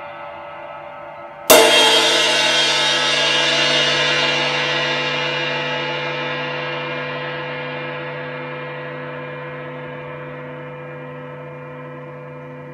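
20-inch Zildjian A Custom Projection Ride cymbal, played with a wood-tip stick, struck once about a second and a half in, then left to ring. The bright wash dies away slowly over the following ten seconds. The tail of an earlier stroke is still ringing faintly before the hit.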